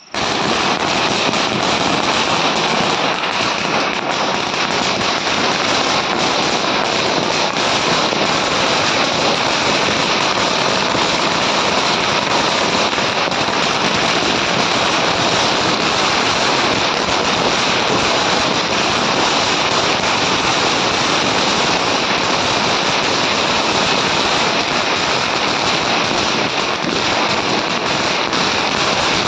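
A long string of firecrackers going off in a rapid, unbroken chain of bangs. It starts suddenly right at the beginning and keeps going without a pause.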